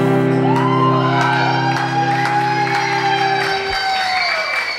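Final acoustic guitar chord ringing out, then stopping about three and a half seconds in, with long held voices and whoops from the crowd over it as the song ends.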